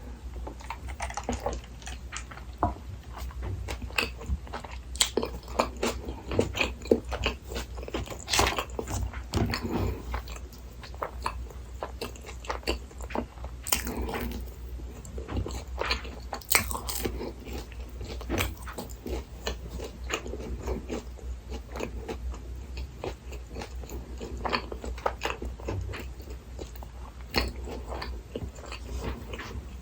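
Close-miked chewing and biting of Burger King Texas Chili Whopper set food: irregular crunches and mouth sounds, over a steady low hum.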